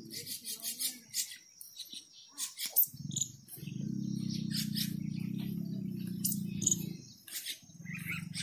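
Small birds chirping in quick, scattered calls, over a low, steady hum that comes in about three and a half seconds in, stops about a second before the end, and starts again near the end.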